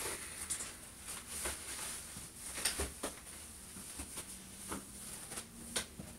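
Fabric rustling and handling noises as a dress is pulled down and adjusted, with scattered soft clicks and knocks, the louder ones about two and a half seconds in and near the end.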